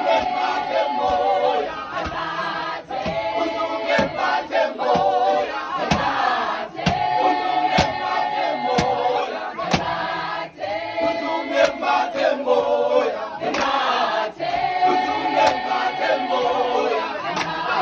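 A group of men and women singing together in chorus, a short sung phrase coming round again every few seconds, with sharp hand claps about once a second.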